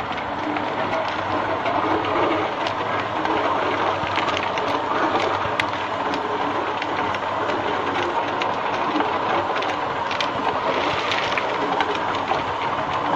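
Industrial tube-ice machine running: a steady mechanical noise with scattered sharp clicks and knocks.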